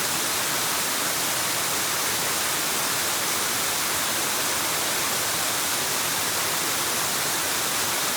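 Steady rushing of a waterfall, an even hiss weighted toward the high end that does not change.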